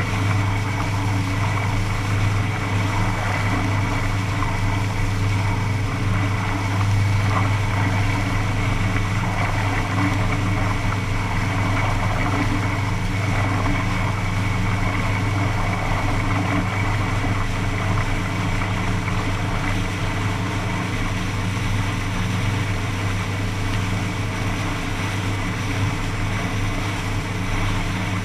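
Engine running at a steady pitch while water rushes and sprays along the hull of a craft moving fast over the water.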